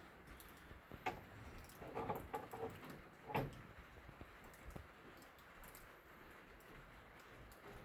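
Light rain on a metal barn roof: a faint steady hiss with scattered drops ticking on the metal, and a few louder taps between about one and three and a half seconds in.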